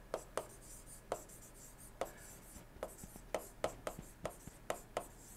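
Faint, irregular taps and scratches of a stylus writing by hand on a tablet screen.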